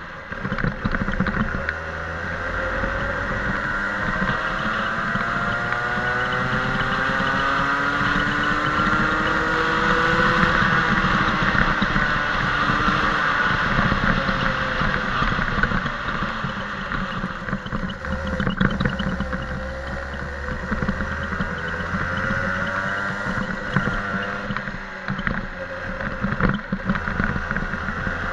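Racing kart engine heard from onboard as the kart laps the circuit: the engine note climbs steadily for about ten seconds, drops as the kart slows for corners, then climbs again from about eighteen seconds.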